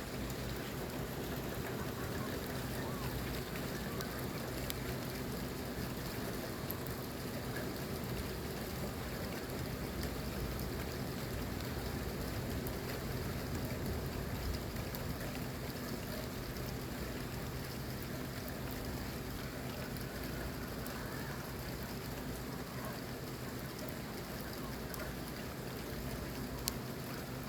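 Steady rain falling, an even hiss with a few scattered sharp drop ticks.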